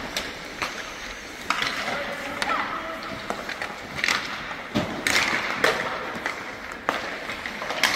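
Ice hockey practice in an echoing indoor rink. Skate blades scrape the ice, and sticks and pucks give sharp, irregular clacks against the ice and boards, with distant voices of players.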